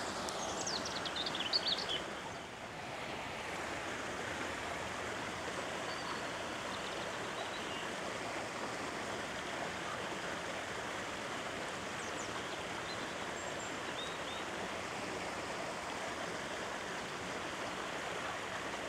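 Steady rushing outdoor noise like running water. A few short high bird chirps come in the first two seconds.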